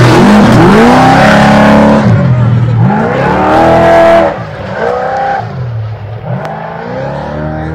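Trophy Truck race engine at full throttle as the truck passes close by and accelerates away on a dirt course. The engine note climbs and drops with each of several upshifts. It is loudest for the first four seconds, then grows fainter as the truck pulls away.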